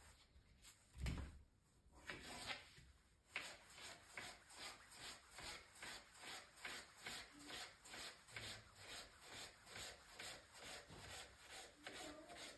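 Faint rhythmic rubbing strokes, about two to three a second, starting a few seconds in.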